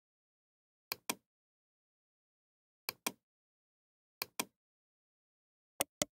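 Computer mouse button clicking in quick pairs, four times, with complete silence between.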